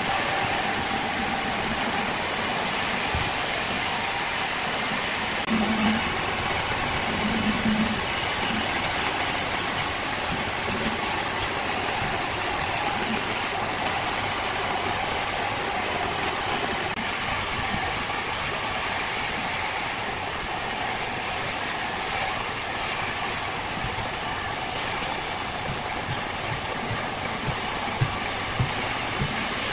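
An engine running steadily, with a few short knocks near the end.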